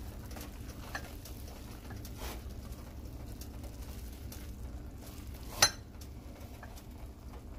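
A black cooking spoon stirring instant noodles in a metal pot: soft scattered clicks and scrapes, with one sharp, ringing clink of the spoon against the pot about five and a half seconds in. A steady low hum runs underneath.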